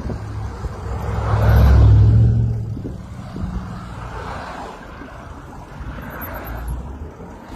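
A car passing close by on the road, swelling to its loudest about two seconds in and then fading away.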